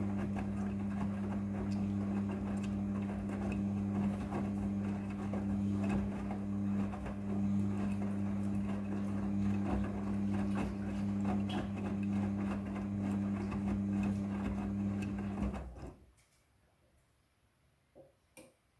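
Midea front-loading washing machine running, a steady motor hum under the churning of the drum. It cuts off suddenly a little after three-quarters of the way through, and two faint clicks follow.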